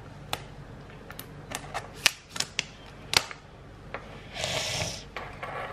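Scissors snipping and clicking against the plastic shrink-wrap on a small box: a run of sharp clicks over about three seconds, then a short rustle of the plastic film about four and a half seconds in.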